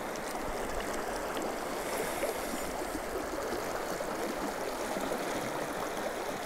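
Shallow river running steadily over a stony bed, a constant even rush of water.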